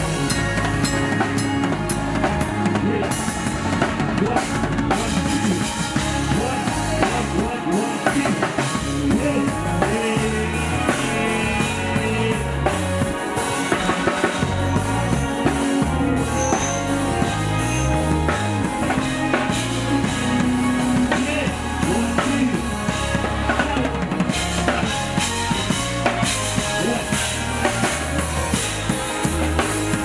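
A live band plays a song: a drum kit keeping a steady beat with kick and snare, an electric bass playing a moving bass line, and keyboards holding chords.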